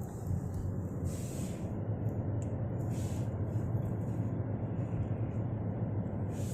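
Car cabin noise while driving: a steady low rumble of engine and tyres on the road, with a few brief hissing swells.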